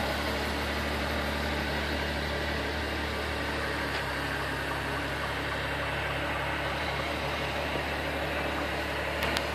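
Ferrari FF's V12 engine idling steadily.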